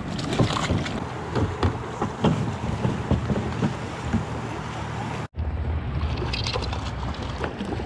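River water rushing close by, with splashes and knocks as a trout is handled over the side of a raft. About five seconds in the sound cuts abruptly to a steadier river rush with low wind rumble on the microphone.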